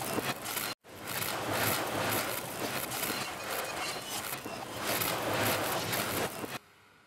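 Noisy rushing intro sound effect, swelling and easing in waves. It breaks off briefly about a second in, then stops sharply near the end, leaving a faint fading tail.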